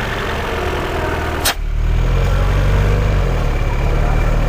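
Peugeot 408 petrol engine idling steadily, with one sharp click about a second and a half in.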